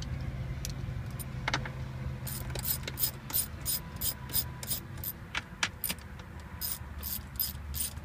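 Hand ratchet backing off 10 mm nuts: a run of sharp pawl clicks, about four a second, starting a couple of seconds in, with a short pause near the middle before the clicking resumes.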